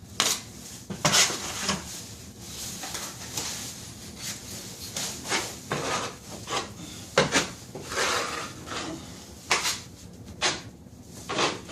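A 6-inch drywall knife spreading and scraping joint compound over paper tape at a ceiling corner, in a series of uneven scraping strokes.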